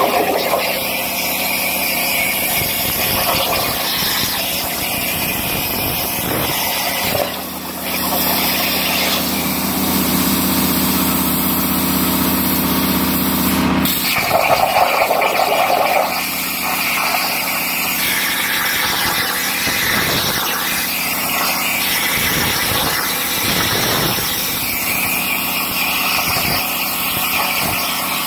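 Plasma torch of a DIY CNC plasma table cutting 5 mm mild steel: the air plasma arc gives a loud, steady hiss and crackle. A lower hum joins it for several seconds in the middle.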